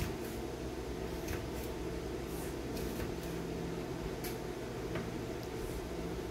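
Kitchen knife slicing a tomato on a plastic cutting board: about a dozen soft, irregular taps of the blade on the board, over a steady low hum.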